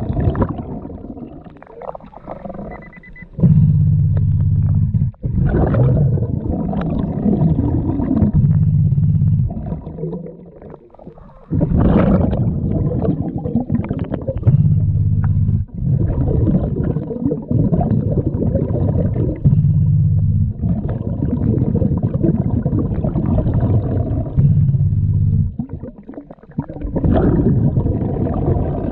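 Scuba diver breathing underwater through a regulator: repeated low, bubbling exhalations every couple of seconds, with brief quieter gaps between breaths.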